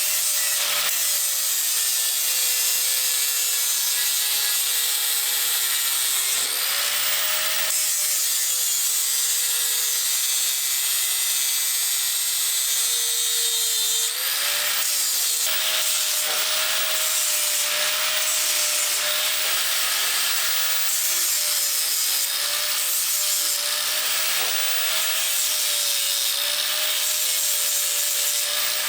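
Angle grinder with a 36-grit flap disc running continuously under load, grinding excess MIG weld off hard stainless steel. The motor pitch shifts briefly twice and then settles back.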